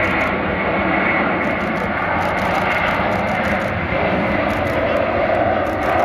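Twin-engine widebody jet airliner's engines at takeoff thrust through the takeoff roll and liftoff: a loud, steady rush of engine noise that grows a little about four seconds in.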